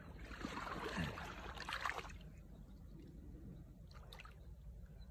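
Muddy water sloshing and splashing for about two seconds, then only faint trickles and small clicks.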